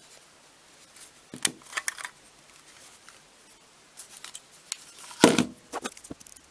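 Handling noise from a plastic Brinno time-lapse camera: scattered light clicks and taps as it is turned over in the hands to get at the battery compartment, and a louder knock about five seconds in as it is set down on the table.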